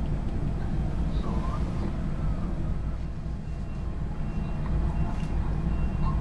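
Steady low rumble of heavy diesel machinery running during log loading at the ship's side.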